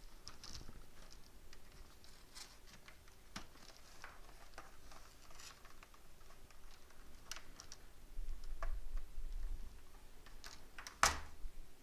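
Scattered small clicks and taps of hands and tools working a laptop's plastic back cover as it is taken off, with a brief low rumble of handling about two-thirds through and one sharp click near the end.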